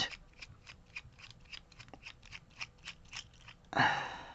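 Quick, irregular light metallic clicks of tools and parts working a Goal pin-tumbler lock being taken apart, about five or six ticks a second. Near the end comes a louder, longer scrape.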